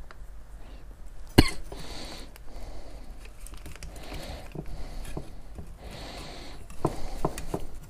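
Parts being handled by hand: a sharp knock about a second and a half in, then soft rustling and scuffing with a few light clicks near the end.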